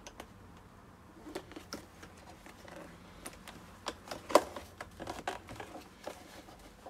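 Irregular clicks, taps and light crinkling as foil-backed sound-deadening sheet is pressed and folded by hand onto a plastic car door trim panel, with one sharper tap a little past the middle.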